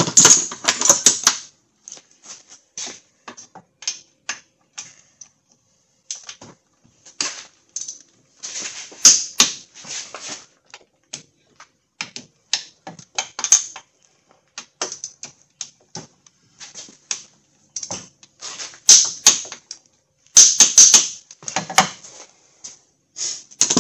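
Ratchet wrench clicking in short runs of quick strokes, stopping and starting, as bolts are run down and tightened to torque.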